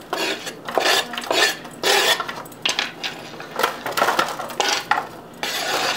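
Serrated table knife scraping chopped onion and garlic across a wooden cutting board into an aluminium foil pan, in a series of short repeated strokes.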